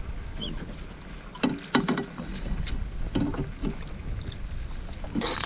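Wind buffeting the microphone aboard a small fishing boat, with a low steady rumble, a few knocks against the boat or gear, and a louder short clatter near the end.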